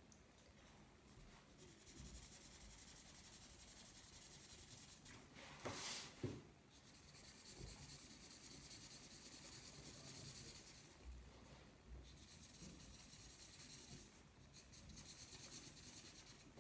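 Felt-tip marker scratching faintly across paper in close, repeated shading strokes, in long stretches with short pauses. A brief louder sound comes about six seconds in.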